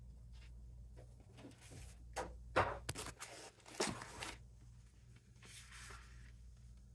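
Sheets of paper and cardstock rustling and sliding as a stack of patterned papers is handled, with a few brisk swishes in the middle.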